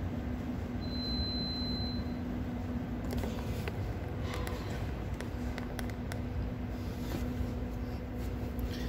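Indoor restaurant room tone: a steady low hum with a constant droning note, a brief high-pitched tone about a second in, and scattered clicks and knocks of a phone being handled and set down on a table.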